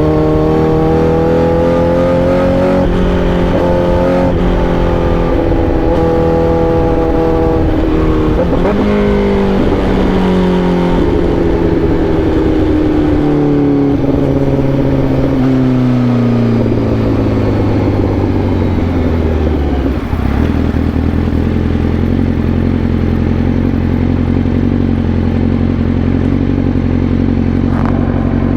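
Honda CBR1000RR-R SP's inline-four engine running under way. The revs rise over the first few seconds, with a break in the note about eight seconds in, then fall steadily for about ten seconds. About twenty seconds in it settles to a steady low note.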